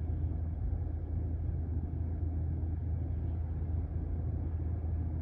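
Steady low hum inside a parked BMW F10 with the ignition on and the engine off, the climate-control fan running.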